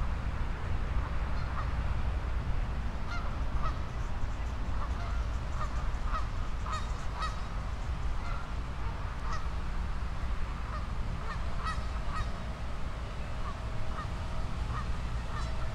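Geese honking, many short separate calls scattered throughout, over a steady low rumble.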